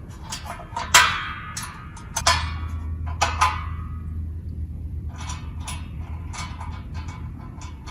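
Metal fan base and pedestal parts clanking together: three ringing clangs in the first few seconds, then a run of lighter metallic clicks and taps as the bolt hardware is fitted.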